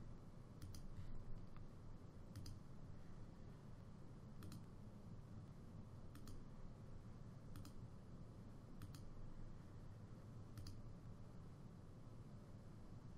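Computer mouse clicking, a short sharp click every second or two, some in quick pairs, over faint low room hum.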